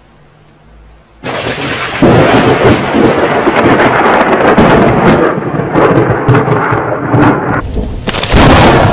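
Thunder from a close lightning strike: a sudden loud crack about a second in that swells and rolls on for several seconds, full of crackles. A second loud burst of thunder begins near the end.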